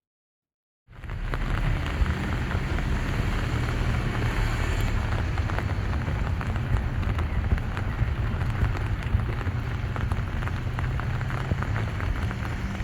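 Heavy rain pouring down, a dense steady patter of drops over a low rumble, starting abruptly about a second in.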